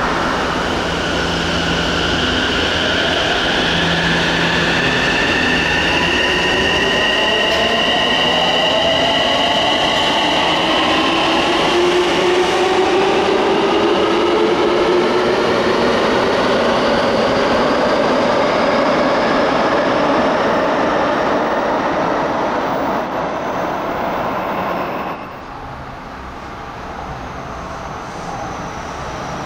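A TX-1000 series electric train pulls out of an underground station. Its inverter-driven traction motors whine in several tones that climb steadily in pitch as it accelerates. About 25 seconds in, the sound cuts to a quieter train at another station.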